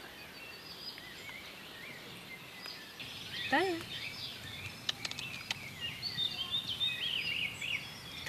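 Small songbirds chirping and twittering in the background throughout, with one short whine-like vocal sound about three and a half seconds in and a few faint clicks around five seconds.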